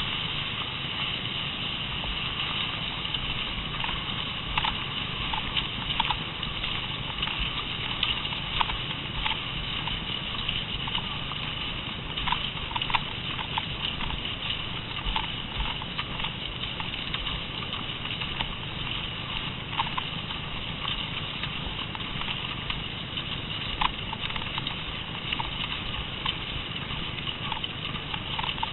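Cross-country skiing on a groomed snow track: skis sliding over packed snow and ski poles planting, heard as irregular sharp clicks over a steady hiss.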